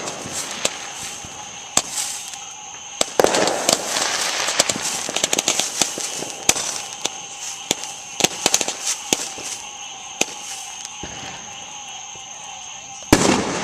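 Astro Flood firework fountain burning with a steady hiss, broken by dense, sharp crackling pops through the middle seconds. A sudden loud rush of noise comes near the end.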